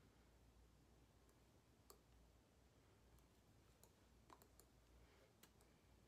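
Near silence: faint room tone with a handful of soft, scattered clicks.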